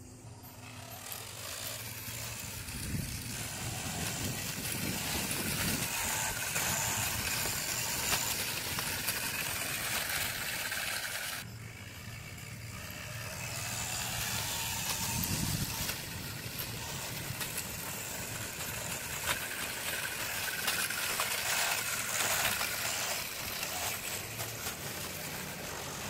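Homemade electric kick scooter riding on concrete: its electric drive motor whines under the hiss of the small wheels rolling. The sound cuts off abruptly about eleven seconds in and comes back with the whine rising as the scooter speeds up again.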